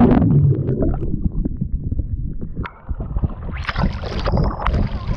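Muffled rumbling and bubbling of water heard with the microphone under the surface, all the high sound gone. About three and a half seconds in, it breaks the surface into open-air splashing and hiss.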